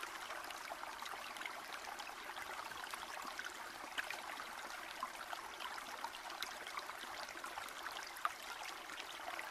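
Faint, steady trickling of running water: an even hiss with scattered small ticks and drips.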